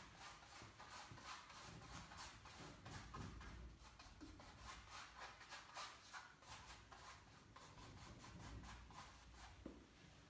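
Paintbrush rubbing against the painting's surface in quick, short, repeated strokes, faint and scratchy; the strokes stop near the end.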